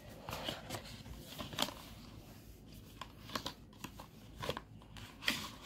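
Cardboard box of a OnePlus 12R phone being handled and its lid slid off: scattered light rustles, scrapes and taps of card against card and fingers.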